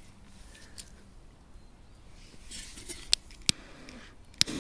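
Quiet handling noises: a brief rustle followed by three short sharp clicks, spread over the last second and a half.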